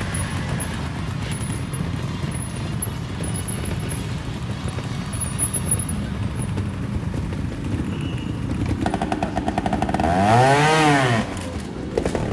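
Trials motorcycle engine running at low revs, then revved hard once about ten seconds in, its pitch rising and falling back.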